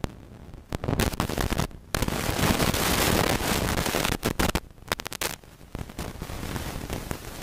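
Storm wind and rain hitting the camera microphone: loud, rough noise in uneven gusts that cut off sharply for moments.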